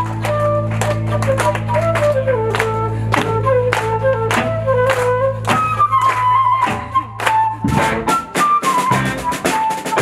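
Live band playing an instrumental passage: a flute melody over drum kit and electric guitars, with a held low bass note that breaks off about three-quarters of the way through and gives way to a new bass line.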